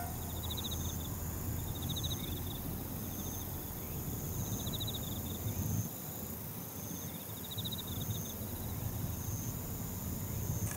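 Insects singing in the grass: short pulsed chirps repeating every few seconds, over a thinner on-and-off high trill and a low background rumble.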